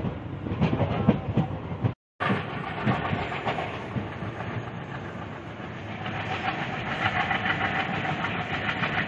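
Moving passenger train heard from inside the carriage: wheels clattering over rail joints in a run of low thumps, then a steady rumble and hiss of the running train that grows brighter from about six seconds. The sound drops out completely for a moment about two seconds in.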